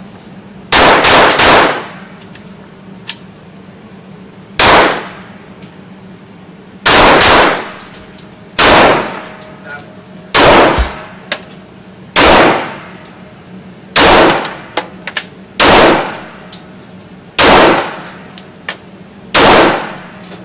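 Glock pistol firing about a dozen single shots, roughly one every one and a half to two seconds, with a couple fired close together near the start. Each report is loud enough to clip the recording.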